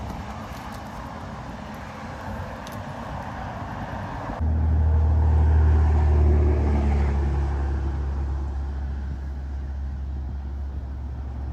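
A low engine rumble from a passing road vehicle, loudest about six seconds in and slowly fading, over a steady hiss of outdoor background noise.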